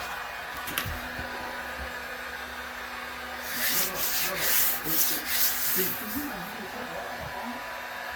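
Sanding of joint compound on a drywall patch: a quick run of scratchy back-and-forth strokes for about two and a half seconds in the middle, over a steady hum.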